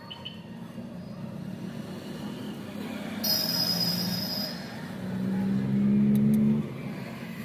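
Road traffic going by: a high squeal lasts about a second near the middle, then a vehicle's steady low engine drone, the loudest sound, runs for about a second and a half before dropping away.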